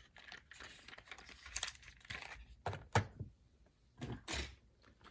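Toy excavator being handled: scattered clicks, taps and short scrapes as its parts are moved, with a few louder knocks midway.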